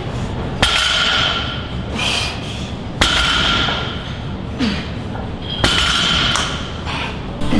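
Barbell loaded with iron plates set down on the gym floor between deadlift reps. There are three sharp metallic clanks about two and a half seconds apart, each followed by a brief ringing from the plates and bar, with softer knocks in between.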